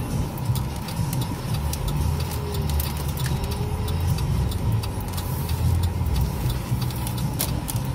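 Car driving, heard from inside the cabin: a steady low rumble of engine and road noise, with scattered light clicks.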